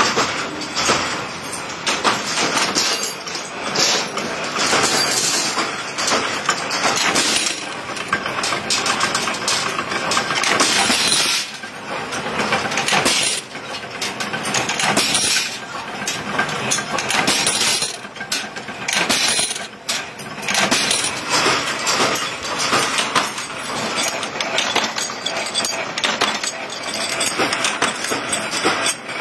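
Steel clanking and clinking in a metal workshop: steel sheet being handled and a power press punching round steel sprocket blanks, with blanks clattering onto one another. The impacts come thick and irregular.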